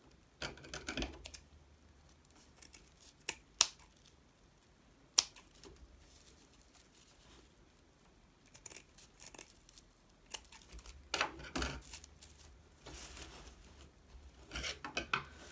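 Scissors snipping the ends of a paper-yarn tassel, with two sharp snips standing out. Soft rustling of the paper yarn comes between them as the crocheted bag is handled.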